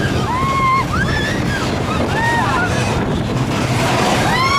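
Mine-train roller coaster running fast along its track: a steady rush of wind on the microphone and rumble of the cars. Riders' voices call out in several short whoops, and a longer one comes near the end.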